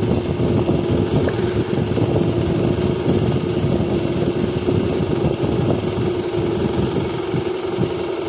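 A steady machine hum: a constant drone with one held pitch over a low rumble.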